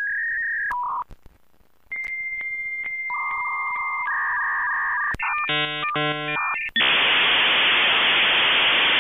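Electronic sound effect: a string of steady beeps at different pitches, some overlapping, with a short gap about a second in, then a brief stacked buzzing chord, then a steady hiss like static.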